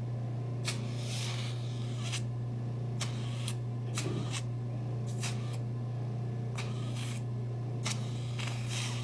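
Hydrafacial machine's vacuum pump humming steadily, with short irregular hissing slurps from the suction tip as it moves over the skin.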